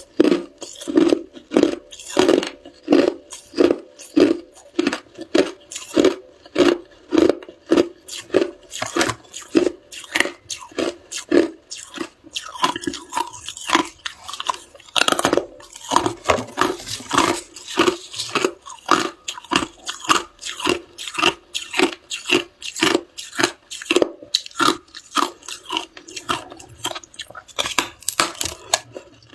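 A person chewing and crunching ice close to the microphone, in a steady run of crunches about two a second.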